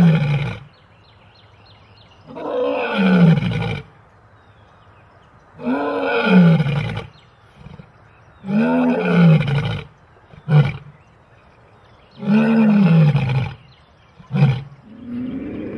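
Male lion roaring in a bout: a string of long, deep roars about three seconds apart, each rising and then falling in pitch. Two short grunts come between the later roars.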